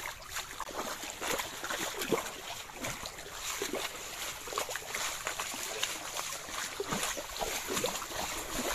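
Floodwater flowing and splashing: a steady rush dotted with many small splashes and gurgles.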